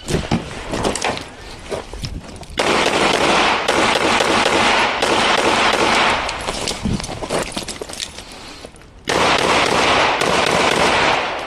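Glock 19 Gen 5 9mm pistol firing a string of rapid shots in the first couple of seconds, followed by long stretches of dense, loud noise that dip briefly around eight to nine seconds in.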